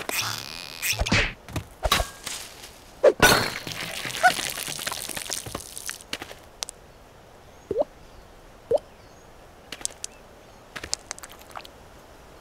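Cartoon sound effects: a quick run of knocks and thuds, then a noisy rush lasting a couple of seconds, then scattered light clicks and two short rising squeaks.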